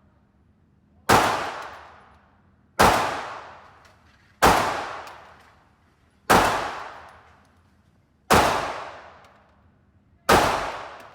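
Six 9mm pistol shots from a P80 Glock 26 build, fired slowly, one about every two seconds, each followed by a long echo that dies away over about a second and a half in the indoor range.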